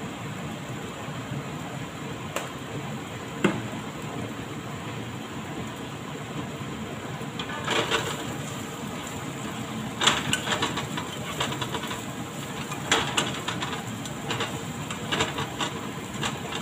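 Sliced onions and ginger frying in a nonstick wok under a steady background hiss, with two light knocks about two and three seconds in. From about halfway, a silicone spatula stirs and scrapes the pan in irregular bursts.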